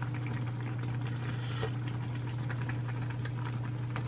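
A pot of kimchi jjigae bubbling at a boil, with many small pops and spatters over a steady low hum. A brief louder hiss comes about a second and a half in.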